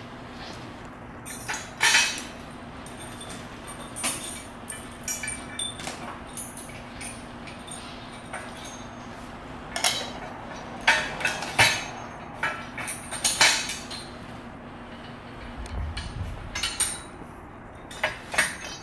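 Metal frame parts of a golf ball range picker knocking and clinking as the sections are handled, lined up and pinned together: irregular sharp clanks and clicks, with a burst about two seconds in, a busier run a little past the middle, and more near the end. A steady low hum runs underneath.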